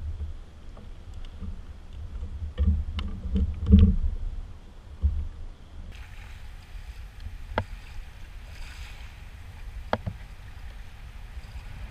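Water lapping against a fishing kayak's hull with a low wind rumble on the microphone, a cluster of knocks and thumps about three to four seconds in, and two sharp clicks later on.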